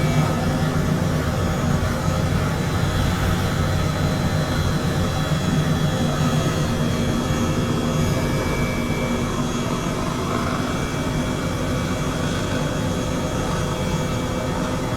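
Jet engine running steadily, a constant low rumble with a faint high whine over it.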